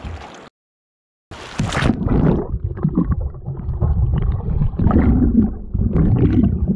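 A whitewater kayak capsizing. After a brief silent gap, a sudden splash as the camera plunges under, then dull, low churning and bubbling of river water heard with the camera submerged.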